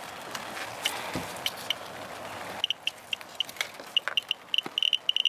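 A RADOS RDS-80A Geiger counter held over a rain swipe sample chirps in short high beeps at irregular intervals, starting about halfway through and coming faster near the end as the count climbs well above background. Before the chirps begin there is a steady hiss with a few light clicks.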